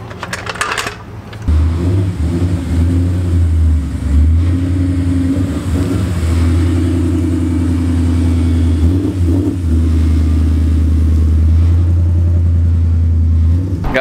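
A modified Ford Mustang V8 starts up about a second and a half in and runs at a steady idle, with a few short dips in its note.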